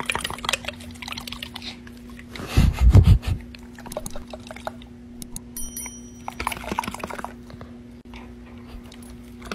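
Wet, slobbery flapping and smacking of a dog's loose lips and jowls as a hand rapidly jiggles its head, over a steady low hum. A louder low rumble comes about two and a half seconds in.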